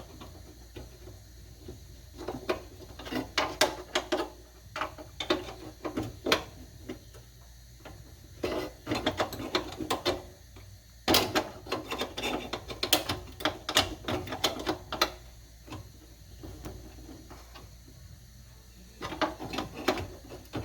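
Hand ratchet clicking in short runs with pauses between, as a deep hood-latch screw is backed out by hand.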